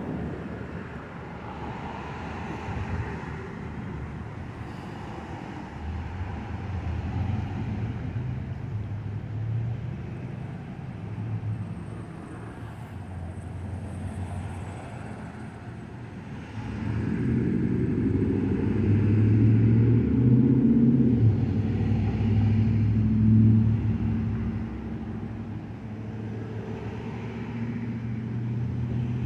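Motor vehicle engines and road traffic: a steady low engine hum that swells louder for several seconds past the middle, then eases off.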